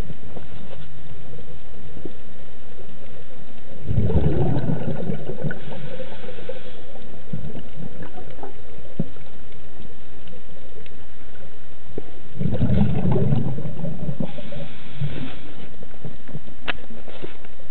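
Scuba regulator exhaust: two bursts of exhaled bubbles gurgling and rumbling past the camera, about four and twelve seconds in, each followed by a softer hiss, over a steady low underwater rumble. A single sharp click comes near the end.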